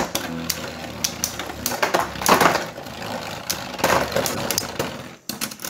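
Beyblade spinning top clattering in a clear plastic stadium bowl: a busy run of sharp clicks and scraping, louder in two stretches near the middle.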